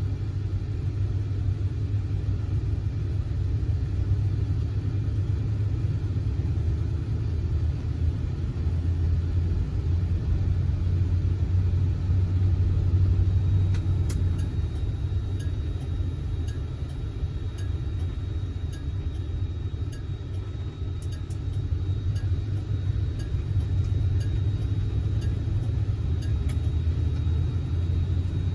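1971 Oldsmobile Cutlass S on the move, a steady low engine and road rumble heard from inside the car; it eases slightly midway, then picks up again. Faint light ticks come through the second half.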